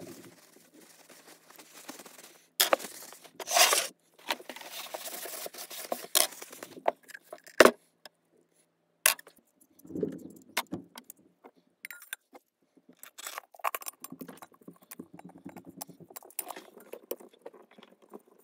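Metal hydraulic filter parts from a 1971 Bobcat M600, the steel canister and perforated filter element, handled on a wooden workbench: scattered metallic clinks and knocks, with rustling from a shop rag. One sharp clink stands out about seven and a half seconds in, and there is a dull knock of the canister on the bench about ten seconds in.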